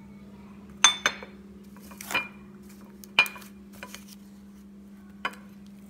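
Ceramic covered dish clinking as its lid is handled: several sharp, ringing clinks, the loudest about a second in and again at about three seconds, over a steady low hum.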